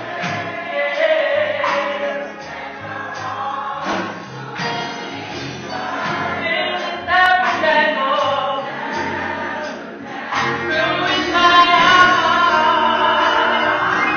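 Gospel choir singing with instrumental accompaniment under a steady bass line.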